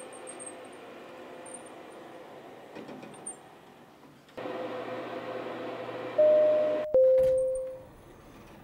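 Elevator car running with a steady hum that gets louder about four seconds in, then the elevator's two-note arrival chime, a higher note followed by a lower one that rings out.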